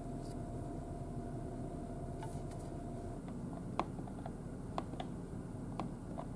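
Steady low hum of the ferry's engines and ventilation in the cabin. From a little past halfway, a series of light clicks as buttons on a Daikin air-conditioner wall controller are pressed, about one or two a second.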